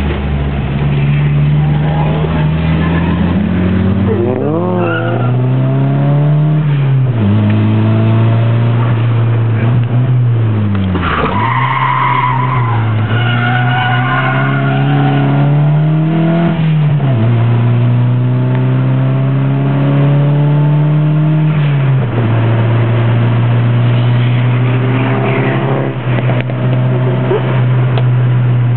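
Nissan 200SX (S13) engine heard from inside the cabin, its revs climbing and dropping again and again while drifting. Tyres squeal at times.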